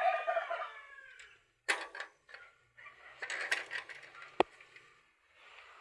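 Chickens calling, a drawn-out call that trails off about a second in, followed by a few sharp knocks and clattering and one loud sharp click near the end.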